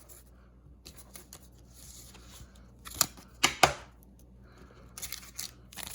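Pokémon trading cards being handled: faint rustling with a few sharp clicks and taps about three seconds in, and a denser rustle near the end.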